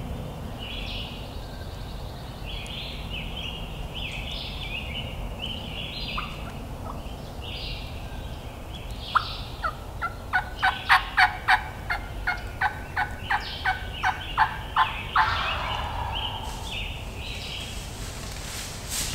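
A long run of turkey yelps, about three a second, starting about nine seconds in and ending in a short, rougher burst. Before it, a songbird calls over and over in quick high phrases.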